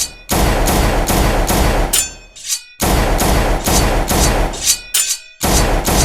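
Automatic gunfire sound effect: long bursts of rapid shots that break off twice, each pause filled by a thin metallic ringing that dies away.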